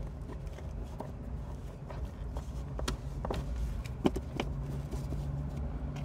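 Scattered light knocks and rustling from hands handling the carpet and pedals in a car footwell, over a steady low hum.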